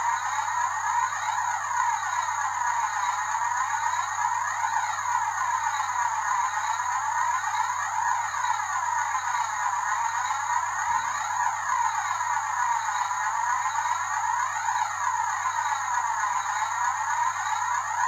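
Background electronic music: a steady droning tone with a whooshing sweep that repeats every second or two.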